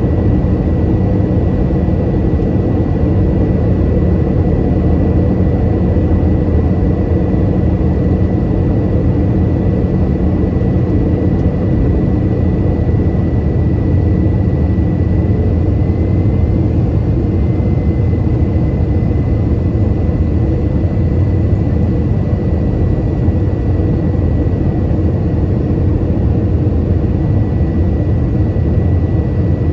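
Steady cabin noise of an Airbus A321 in flight: the drone of its CFM56 turbofans and the rush of air along the fuselage, with a thin steady whine on top that briefly shifts a little higher about halfway through.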